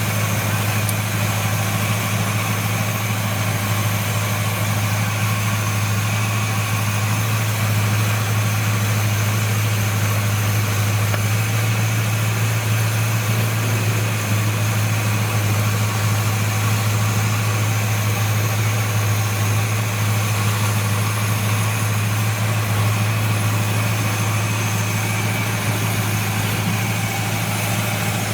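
1970 Buick Wildcat's 455 V8 running steadily with an even low hum, while its ignition advance is checked with a timing light.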